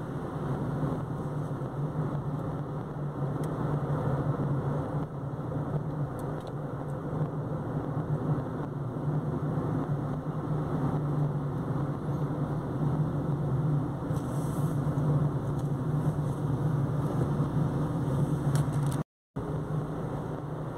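Steady low drone of a car's engine and tyres heard from inside the cabin while driving up a winding road. The sound cuts out completely for a split second near the end.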